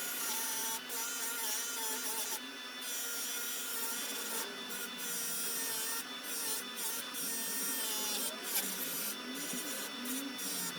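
Metal fender mounts being polished: a steady rubbing, scraping sound with a faint whir running under it.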